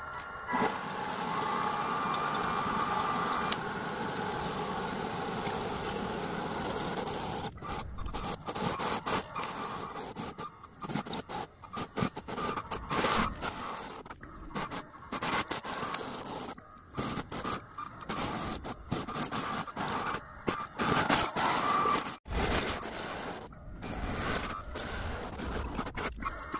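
Homemade radio-controlled hydraulic bulldozer working, with a steady high whine from its drive running throughout. Irregular metallic clatter and scraping come and go over it, with short breaks.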